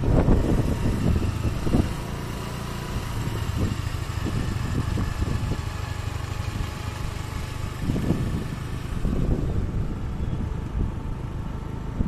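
Engine of the small vehicle carrying the camera, running steadily at cruising speed, with a faint steady whine and wind rumbling on the microphone that gusts louder near the start and again about eight seconds in.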